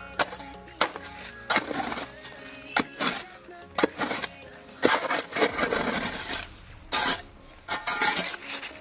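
Hand digging in soil: a digging tool strikes the ground in sharp knocks, between longer scraping strokes as earth is loosened and shifted.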